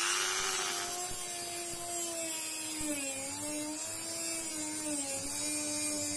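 Dremel rotary tool with a cut-off wheel grinding off the jagged tips of protruding steel screws: a steady high whine over a hiss, its pitch dipping slightly about three and five seconds in as the wheel bites into the metal.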